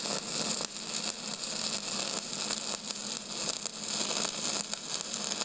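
A steady crackling hiss with a faint low hum under it, starting suddenly.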